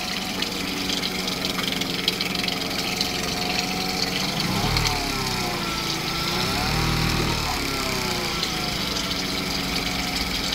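Honda 8 hp two-cylinder four-stroke outboard motor idling steadily in a test barrel of water. Its pitch dips and comes back up once about halfway through.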